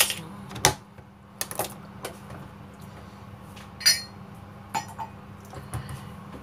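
Kitchen utensils and a cake pan being handled: a few sharp clinks and knocks, one with a brief metallic ring about four seconds in, over a steady low hum.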